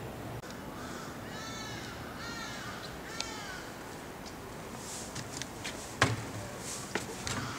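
A crow cawing: about four harsh caws in quick succession in the first three seconds or so. A few sharp knocks follow in the second half, the loudest about six seconds in.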